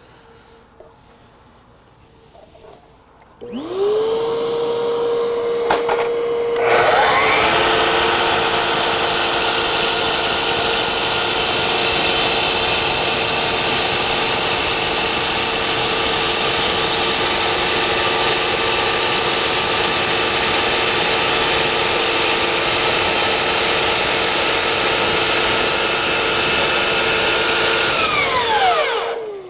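DeWalt miter saw motor spinning up about three and a half seconds in to a steady whine, then its blade slowly cutting through flexible crown moulding in one long, continuous cut of about twenty seconds. Near the end the blade leaves the cut and the motor winds down with a falling whine.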